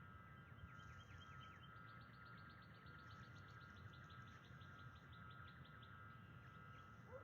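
Faint songbird trill: a rapid run of short, high, down-slurred notes, about seven a second, lasting some five seconds, over a steady faint hum.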